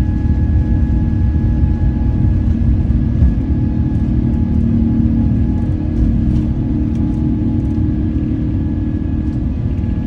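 Steady low rumble of a running engine, with a few constant tones held over it and no change in pitch.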